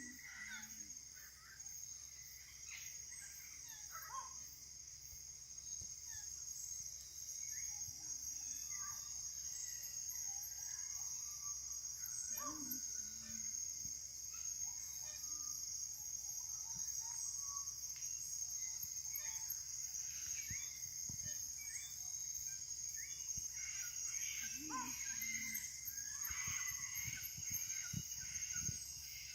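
Tropical forest ambience: many birds giving short calls over a steady high-pitched insect drone.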